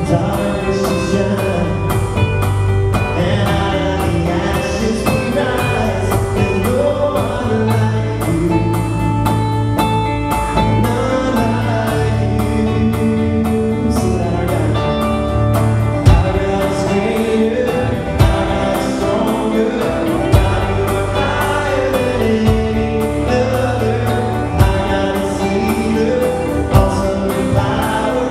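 A live worship band playing a song: guitars strumming over a drum kit, with men singing. Single drum hits stand out several times in the second half.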